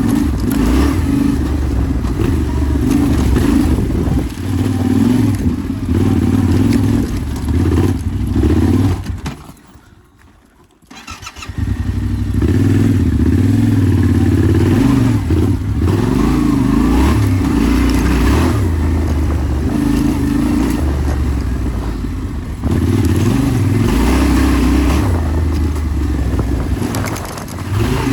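Yamaha Ténéré 700's parallel-twin engine running while riding, its pitch rising and falling with the throttle. About ten seconds in, the sound drops away almost completely for around two seconds, then the engine is heard again.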